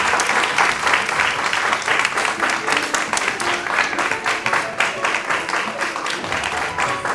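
Audience applauding: a dense, steady run of many people's hand claps.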